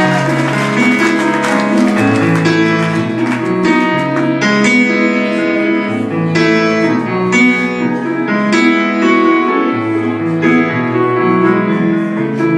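Piano playing the slow opening chords of a country ballad, with the band's sustained notes behind it, recorded live.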